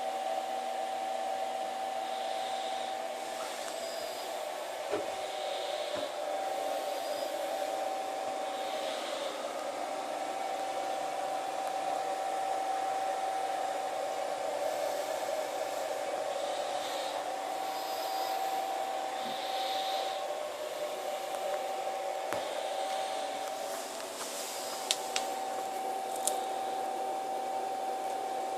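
Home-built CNC router running, likely cutting oak: the Chinese spindle gives a steady high whine over a constant rushing noise, with soft swells about every two seconds. A few sharp clicks come near the end.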